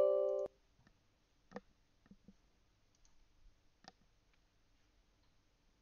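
Windows system alert chord, sounding as the User Account Control prompt comes up and cutting off abruptly about half a second in. A few faint clicks follow.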